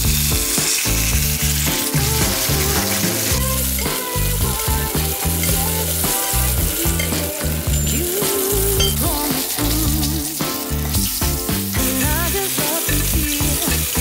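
Salmon fillet sizzling steadily as it pan-fries in garlic oil in a stainless steel frying pan, with background music playing under it.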